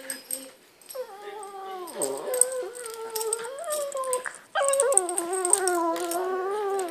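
A dog whining in long, wavering, pitched calls during rough play: a first call of about three seconds, then a second, louder one starting about halfway in, with a few light clicks between.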